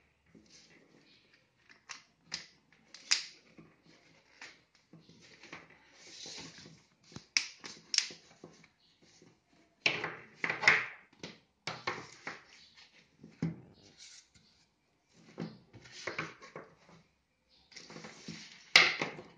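Irregular clicks, taps and rustles of plastic hose fittings and flexible tubing being handled and pushed together on a tabletop, with a sharp click near the end.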